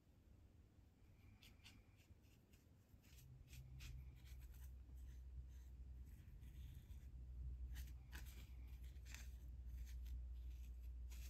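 Faint scratching and dabbing of a paintbrush working a water-effect medium over a rough, textured sea base, in many short strokes. A low steady hum comes in a few seconds in.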